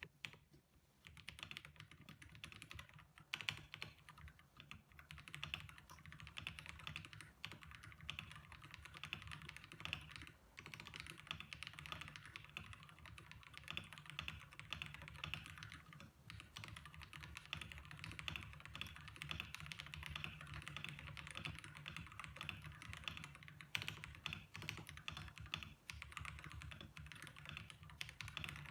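Steady fast typing on a Dareu EK75 Pro mechanical keyboard with its stock switches, a dense run of key clicks with only a few brief pauses.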